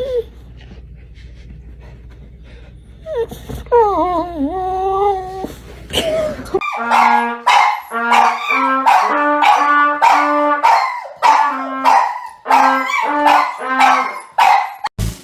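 A dog whining and howling in rising and falling glides. In the second half it goes on over a simple tune of steady stepped notes.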